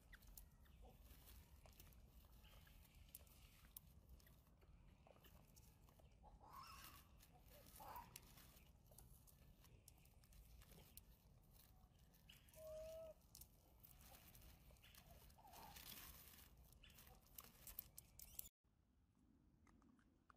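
Very faint outdoor background: light rustling and crackling clicks, with a few faint short animal calls, one a brief steady squeak about two-thirds of the way through. Near the end it drops to a quieter hush.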